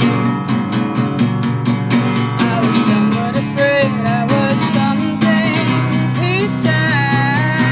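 Acoustic guitar strummed steadily, with a woman singing a melody over it.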